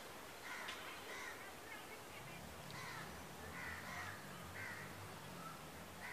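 Birds calling faintly, short calls repeated roughly once a second, over a low hum that comes in about two seconds in.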